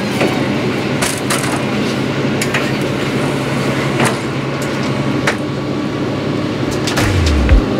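KIHA 183 diesel railcar running, with a steady low engine hum and scattered clicks and knocks. A music beat of regular low thuds starts near the end.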